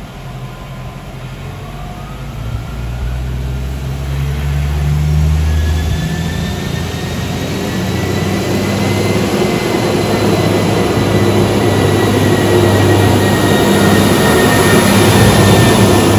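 ATR220 'Swing' diesel multiple unit pulling away: its diesel engines run up under load and the sound grows steadily louder as the train gathers speed past, with a faint whine rising in pitch.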